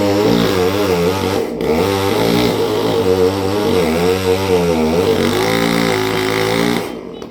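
Chainsaw engine running with its speed wavering up and down, then cutting off suddenly near the end.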